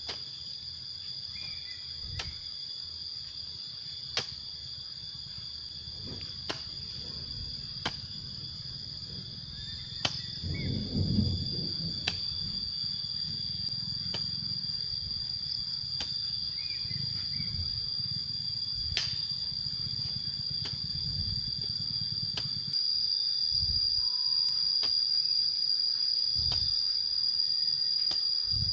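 Steady high-pitched insect chorus, with a hoe chopping into soil about every two seconds and scraping earth in between.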